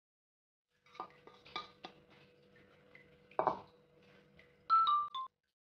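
Orange spatula stirring cornstarch in a glass mixing bowl, clicking and knocking against the glass: a few light clicks, a louder knock about three and a half seconds in, and near the end three short, louder ringing tones, each a little lower in pitch.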